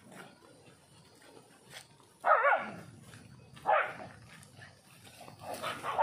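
A dog barking three times, short pitched barks about two seconds in, just under four seconds in and near the end; the first is the loudest.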